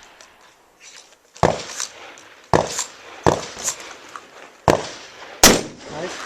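Shotgun firing five shots about a second apart, the last the loudest, each followed a fraction of a second later by a fainter crack.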